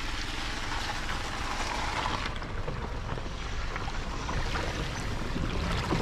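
Car tyres rolling slowly over a stony dirt track and into a shallow muddy pool, water sloshing around the front wheel, with a steady rumble of road noise.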